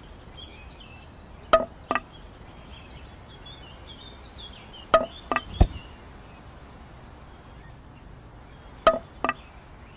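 Short, hollow knocks of thin bamboo sticks striking each other, each with a brief ring, in pairs about half a second apart, heard three times.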